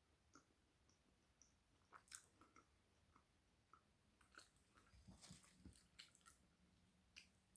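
Faint, close-miked chewing of spiced flatbread: irregular soft crunches and small wet mouth clicks, busiest about two seconds in and again from about four and a half seconds.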